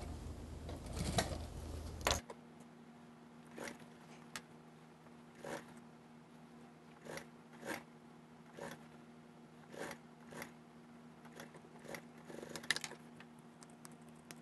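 Industrial sewing machine running briefly as it stitches mink fur, stopping with a sharp click about two seconds in. After that there is only a faint steady hum and scattered soft taps and rustles of fur and fabric being handled and repositioned under the presser foot.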